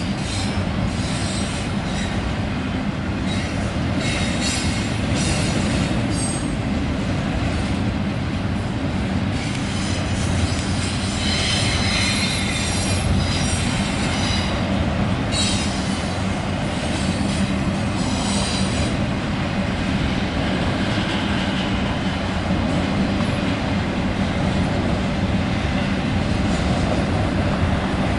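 Double-stack intermodal freight train's container well cars rolling past at steady speed: a continuous rumble of wheels on rail with clacking, and high-pitched wheel squeal that comes and goes, strongest about twelve seconds in.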